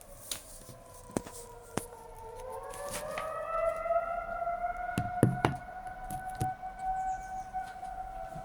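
Civil defence warning sirens sounding in a public siren test. About two seconds in, a siren tone winds up in pitch and then holds steady over another steady tone, growing louder, with a few sharp clicks, the loudest about five seconds in.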